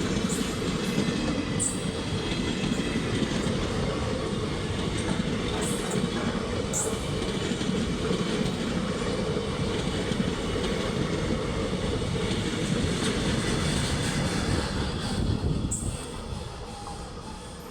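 Train running past at speed: a continuous rumble and clatter of wheels on the rails, with a few brief high-pitched squeals. The noise falls away near the end.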